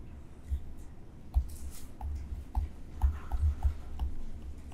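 Irregular light clicks and taps with soft low thumps: a stylus choosing a pen colour from the on-screen menu and then writing a word on a tablet screen.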